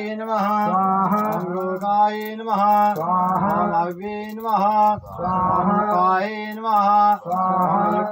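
A male voice chanting a Hindu devotional mantra in a melodic sing-song over a steady drone, with a brief break between phrases about five seconds in.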